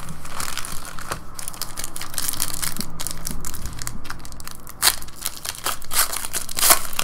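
Foil trading-card pack wrapper crinkling as hands handle it and tear it open, with several sharper crackles along the way.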